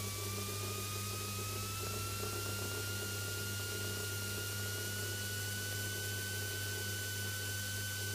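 Piper Archer cockpit intercom audio while taxiing: a steady hiss and low hum, with a thin whine that rises slightly in pitch over the first few seconds and then holds steady.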